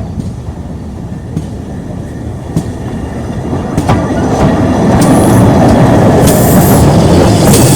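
Steam train passing slowly and drawing closer, its rumble growing steadily louder, with wheels knocking over rail joints at an even, unhurried pace. In the last few seconds sharp high hissing and squealing bursts come in.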